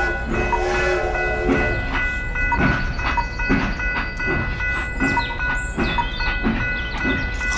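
Train running on the rails with a rhythmic clickety-clack of about two beats a second over a low rumble, and a steady multi-tone horn held until it stops near the end.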